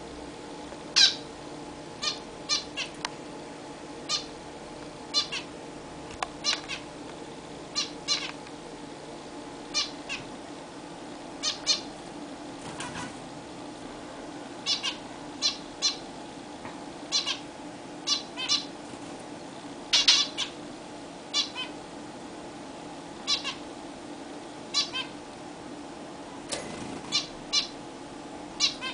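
Zebra finches calling: short, nasal beeping calls repeated at irregular intervals, often two or three in quick succession.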